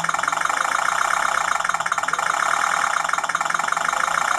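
Technobots electronic sound module playing a simulated engine through a small speaker under throttle from the radio: a steady, fast-pulsing engine note with a brief dip about two seconds in.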